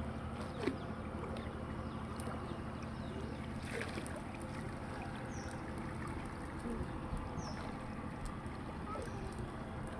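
Water swishing and lapping as a fishing net is dragged through muddy shallow water, over a steady low hum.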